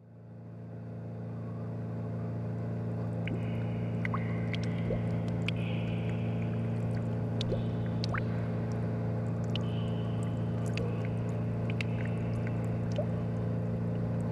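A boat's motor running at a steady idle, fading in over the first couple of seconds into an even hum, with scattered short high chirps and clicks above it.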